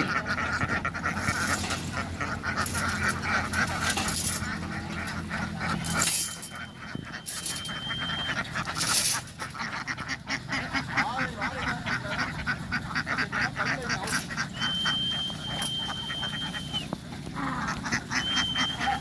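A large flock of ducks quacking in a dense, continuous chatter. A thin, steady high tone sounds three times: about six seconds in, in the middle, and near the end.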